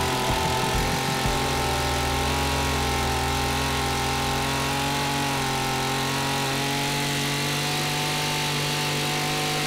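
STIHL FS26 brush cutter's engine idling steadily at an even pitch.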